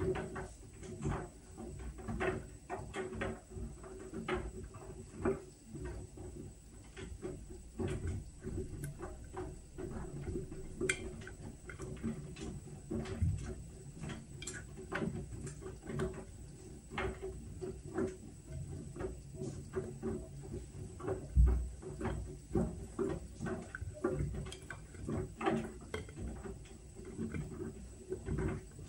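Whirlpool washing machine running its Steam Refresh cycle: a steady low hum with frequent irregular clicks and light knocks, and one heavier thump about twenty seconds in.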